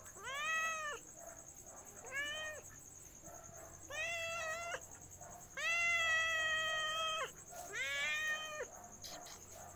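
Cat meowing five times, most meows rising then falling in pitch; the fourth, a little past halfway, is held longest at nearly two seconds.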